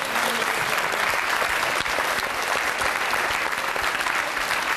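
A large studio audience applauding steadily.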